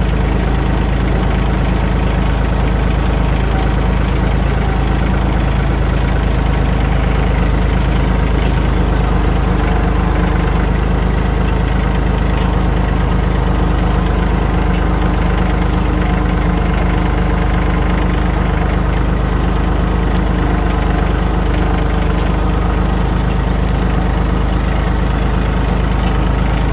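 John Deere 3033R compact tractor's three-cylinder diesel engine running steadily as the tractor drives along, heard from the operator's seat.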